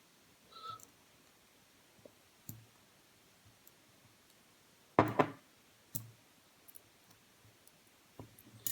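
A few scattered small clicks and taps, the sharpest about five seconds in: tiny lock pins being lined up with tweezers on a work surface.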